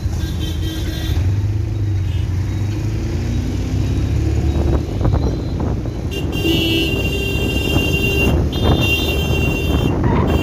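Road traffic heard from a moving vehicle: a steady low engine and road rumble, with vehicle horns honking in the second half, two long honks starting about six and eight and a half seconds in.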